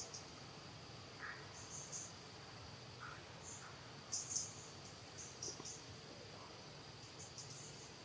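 Faint insect chorus: a steady high-pitched drone, with short high chirps coming in clusters every second or so and a couple of softer, lower chirps.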